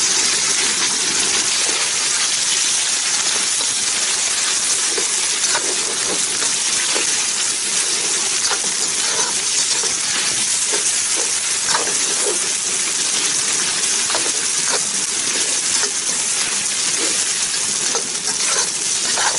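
Shredded beef sizzling steadily as it fries in hot oil in a pan, with scattered light metallic clinks of a spatula stirring it.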